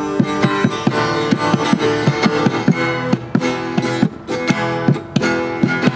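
Instrumental break: an acoustic guitar strumming chords while a hand-played goblet drum keeps a steady, quick beat of sharp strikes.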